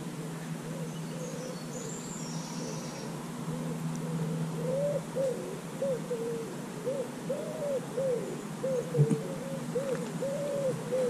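A pigeon cooing: a repeated run of short, soft notes, each rising and falling, starting about four seconds in. A low steady hum is under the first few seconds.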